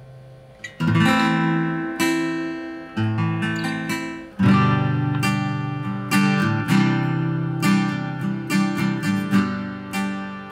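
Orangewood Mason Live acoustic guitar being strummed. A chord dies away, then about a second in a loud strum starts a run of strummed chords that comes quicker in the second half.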